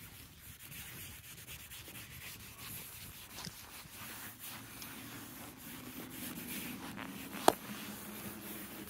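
Microfiber cloth rubbing over plastic wheel-arch trim, a soft continuous wiping as trim restorer is worked in. A single sharp click sounds near the end.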